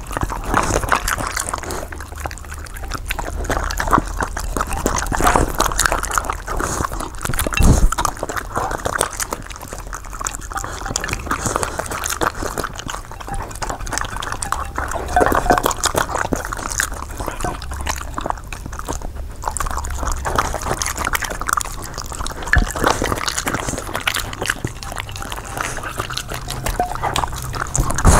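Two dogs eating stir-fried quail eggs in sweet-sour tamarind sauce off plates, heard close up: wet smacking, licking and chewing.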